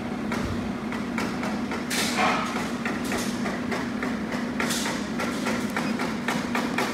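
Steady low machine hum with many irregular clicks and knocks, and two short hissing bursts about two and about five seconds in.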